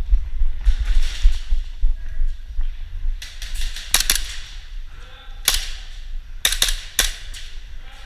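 Airsoft guns firing: sharp cracks, single and in quick pairs, starting about three seconds in, over a steady low rumble on the microphone.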